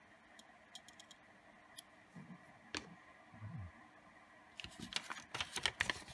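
Faint handling noise: a few light clicks and soft thumps, then about two-thirds of the way in a quick, dense run of small clicks and rustles as a Swiss Army knife and its papers are handled.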